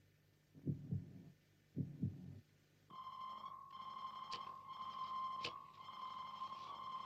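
Heartbeat sound effect, slow double thumps twice. About three seconds in, a steady high electronic tone cuts in with faint bleeps and sharp clicks: the signal of a hand-worked electronic transmitter.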